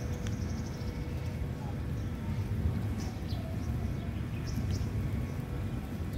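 Birds chirping in short, high calls, a quick run of them at the start and a few more around the middle, over a steady low rumble.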